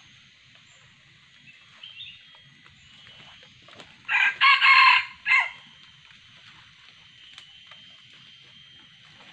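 Red junglefowl rooster crowing once, about four seconds in: a short crow in a few joined syllables with a separate clipped final note.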